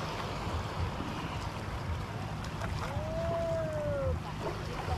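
Wind on the microphone and small waves washing over a shallow sandy shore. A single drawn-out call, rising then falling, is heard about three seconds in.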